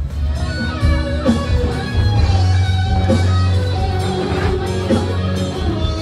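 Music with plucked and strummed guitar over a heavy, steady bass.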